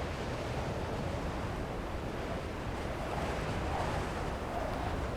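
Steady rush of wind and sea water around a boat under way, with wind buffeting the microphone.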